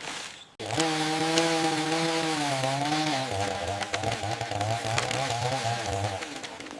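A small engine-driven tool running, starting abruptly under a second in; its pitch drops about halfway through and holds lower, as under load, until it stops near the end.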